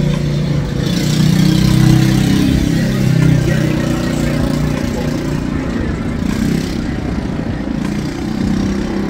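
A motor vehicle's engine running close by on the street, a low hum that grows louder about a second in and then slowly eases off, over steady traffic noise.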